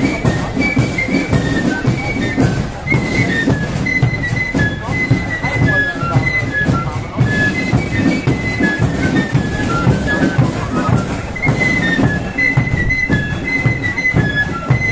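Marching flute band playing a tune in unison on flutes, the high melody carried over a steady pattern of sharp beats.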